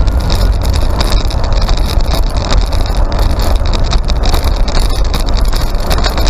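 Wind buffeting the microphone of a camera mounted on an electric motorbike while it is ridden: a loud, steady rush with a deep rumble and no engine note.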